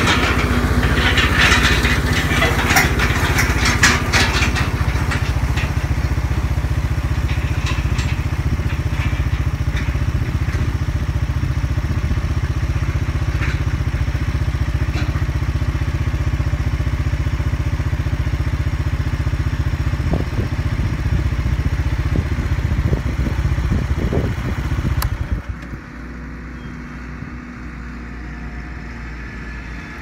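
Case IH tractor's diesel engine running steadily under load as it pulls a roller crimper through a tall standing cover crop, with crackling of stalks being crushed in the first few seconds. About 25 s in the engine sound drops sharply and continues quieter.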